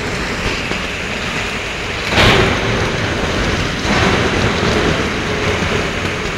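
Submerged arc welding equipment at work: a steady rushing industrial noise that swells sharply about two seconds in and again near four seconds, with a faint steady hum underneath after the first swell.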